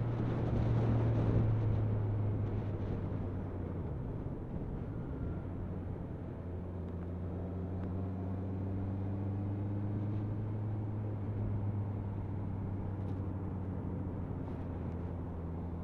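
Motorcycle engine running under the rider with wind and road rush, as the bike slows from dual-carriageway speed into a roundabout. The wind rush eases after the first couple of seconds, and the steady engine note climbs a little in the second half.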